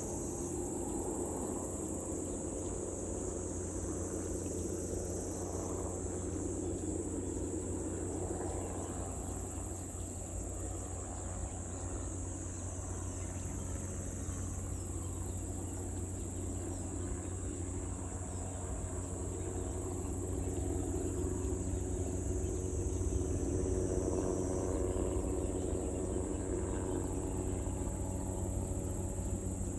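Steady drone of a crop-spraying helicopter's engine and rotor, swelling somewhat about two-thirds of the way through, over a constant high chirring of insects.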